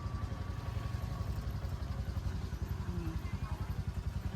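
Small motorcycle engine running steadily with a rapid, even putter.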